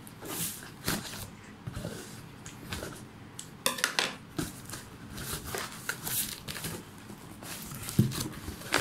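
Scissors cutting through the packing tape on a cardboard shipping box, then the box being handled and its cardboard flaps pulled open, with irregular scraping, crinkling and tearing sounds.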